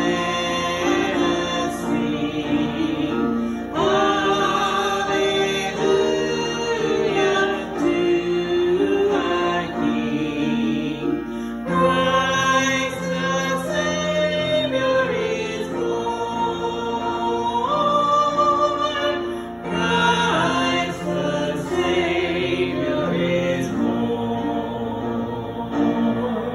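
Choir singing a hymn, the voices holding long notes.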